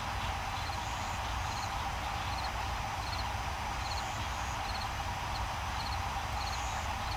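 Steady hiss and low hum of the Apollo mission radio audio loop between transmissions, with faint regular ticking about twice a second.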